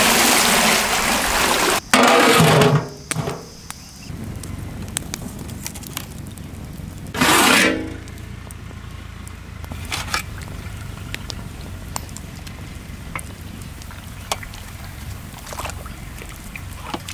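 Water poured into a large aluminium cooking pot in two long gushes over the first three seconds. After that comes a steady low rumble of water heating over a wood fire, with scattered crackles and one brief loud burst about seven seconds in.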